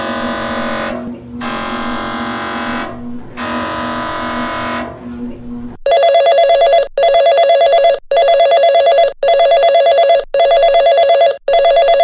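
Emergency Alert System test signal: three buzzy electronic bursts of a second or so each, then from about six seconds in the alert tone, a trilling, telephone-like ring repeating in roughly one-second pulses with short gaps.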